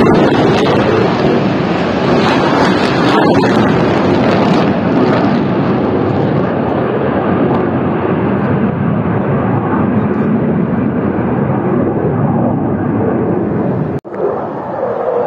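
F-16 fighter jet engine noise as the jet flies over, a loud, steady rush whose hiss dulls gradually as it moves away. The sound drops out abruptly for an instant near the end, then carries on.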